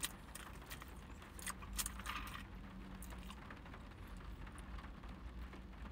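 A plastic drink bottle handled and its screw cap twisted open: a few faint clicks and crackles in the first two and a half seconds, then quiet.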